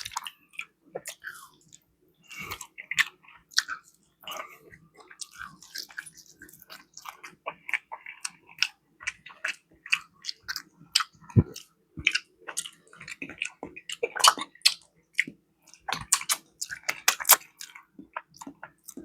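A person chewing and biting food close to the microphone: irregular wet clicks and smacks of a mouthful being eaten.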